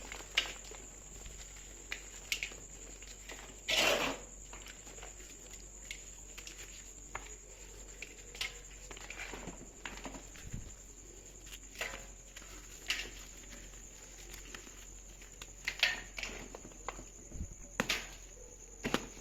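Brown clay being handled and crumbled by hand: scattered crisp cracks and crunchy snaps at irregular intervals, with a louder crunch about four seconds in.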